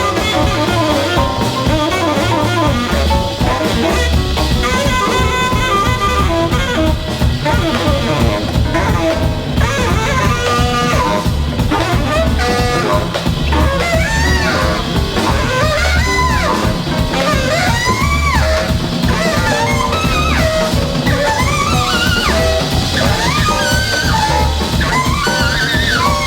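Background music: an instrumental tune with a melody over a steady low beat.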